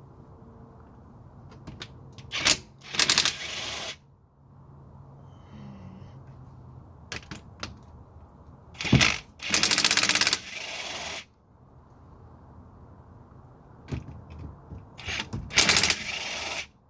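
Three bursts of rapid clicking rattle, each lasting about a second, from a wrench spinning out the bolts of a Dana 35 rear differential cover.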